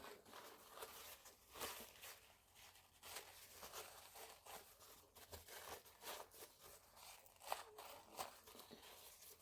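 Near silence with faint, scattered rustling and light clicks of small things being handled.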